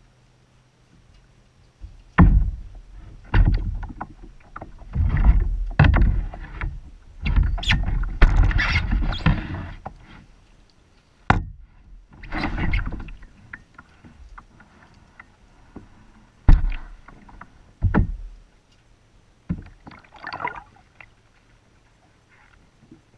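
Kayak being handled on the water: irregular knocks and thumps on the hull with noisy bursts of movement, the busiest stretch in the first ten seconds, then single knocks between quiet gaps.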